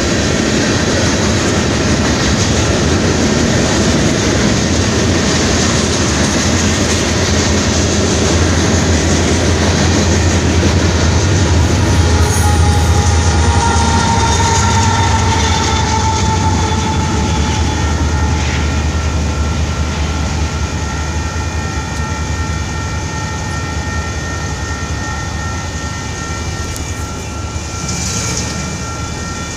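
Freight train rolling past at a level crossing, wheels clattering on the rails, with a brief squeal about halfway through. The noise eases off over the last several seconds as the end of the train passes.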